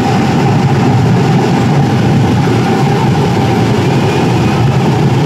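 Loud, steady din of a street procession: crowd noise mixed with a low rumble of vehicle engines.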